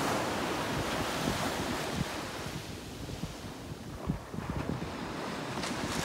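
Ocean surf breaking and washing up on a sandy beach, louder at first and easing a little midway, with wind buffeting the microphone in short low rumbles.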